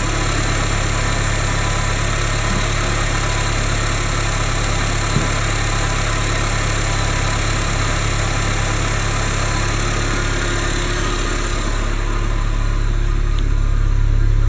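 2006 Mini Cooper R50's 1.6-litre four-cylinder W10B16A engine idling steadily with the bonnet open, running evenly. It grows a little louder over the last couple of seconds.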